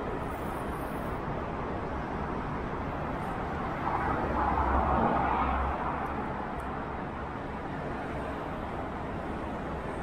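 Steady road traffic noise, with a louder swell between about four and six seconds in.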